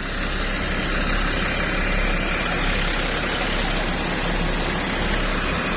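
Diesel bus engine idling, a steady low running sound with no change in level.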